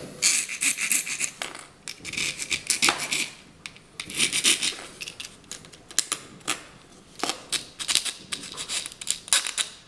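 Flat hand file rasping against the clipped-through rear eye of a fishing wobbler lure, in many short, uneven strokes, smoothing off the sharp corners left by the cut.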